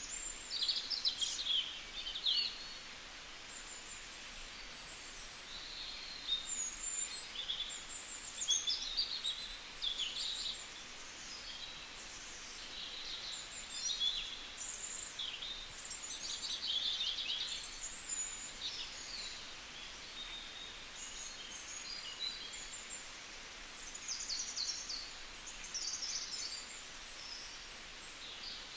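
Small birds chirping and warbling in quick, high, overlapping calls throughout, over a steady background hiss.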